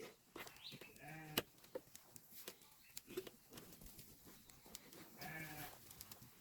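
Faint bleating from goats and sheep: two short wavering calls, one about a second in and another near the end.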